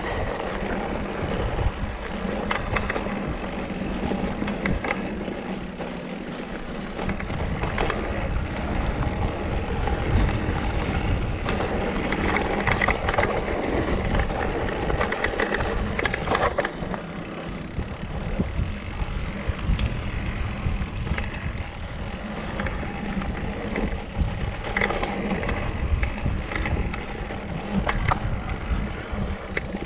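Marin Rift Zone 2 mountain bike rolling over a dry, stony dirt trail: tyres crunching on dirt and gravel, with frequent small knocks and rattles as the bike goes over bumps.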